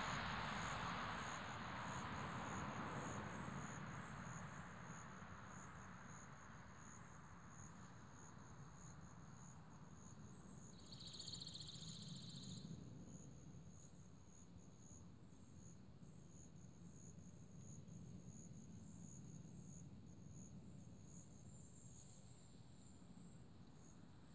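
Insects chirping steadily, a high, fast-pulsing trill that carries on throughout. A broad rushing noise fades away over the first few seconds, and a brief higher buzz joins in for about two seconds near the middle.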